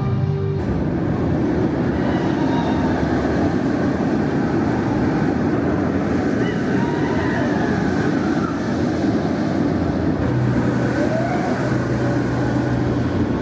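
Theme park ambience: a steady, loud rushing noise with faint voices in it, taking over from music that cuts off just under a second in. A low steady hum joins about ten seconds in.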